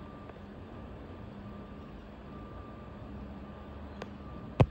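Steady distant rumble and hiss, with a faint hum that comes and goes. Near the end there are two sharp clicks, the second much louder and the loudest sound here.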